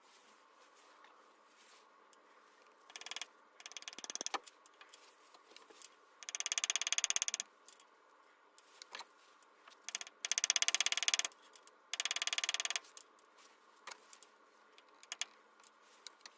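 Ratchet wrench clicking fast in four bursts of about a second each, with scattered single tool clicks in between.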